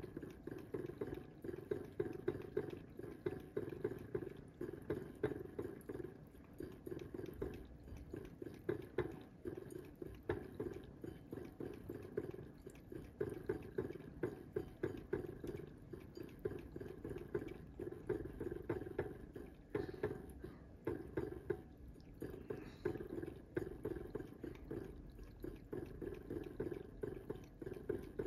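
Cat lapping water from a bowl: a quick, steady rhythm of wet laps, with a short break about twenty seconds in.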